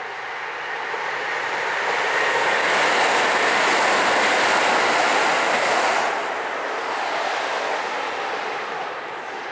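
A train passing: its rolling noise swells over the first couple of seconds, holds, then drops off sharply about six seconds in and fades.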